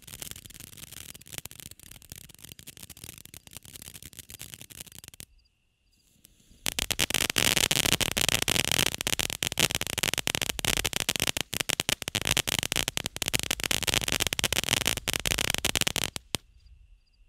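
Consumer firework fountain spraying and crackling: a dense, rapid patter of small pops over a hiss. It goes quiet about five seconds in, bursts back much louder a second and a half later, and cuts off about a second before the end.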